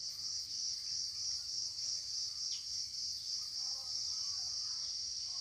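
Insects calling: a steady, high-pitched buzzing chorus that pulses about four times a second.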